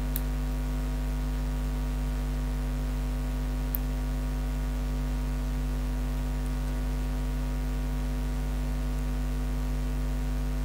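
Steady electrical mains hum, a low drone with a ladder of higher overtones, at an even level throughout, with a couple of faint ticks.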